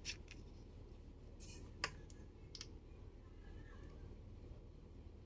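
A handful of light clicks and taps from small craft items being handled on a worktable, the sharpest about two seconds in, over a faint low steady hum.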